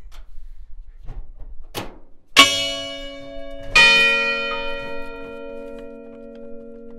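Large hanging bells struck twice, about a second and a half apart. Each stroke rings on with a long, slowly fading hum.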